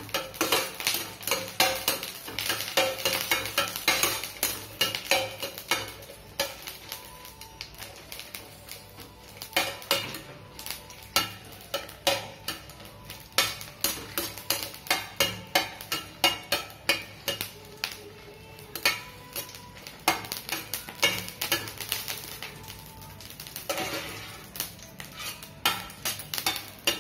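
Steel slotted spatula scraping and clinking against a stainless steel kadai, stirring dried red chillies frying in a little oil, with a light sizzle underneath. The strokes come a few a second, in spells.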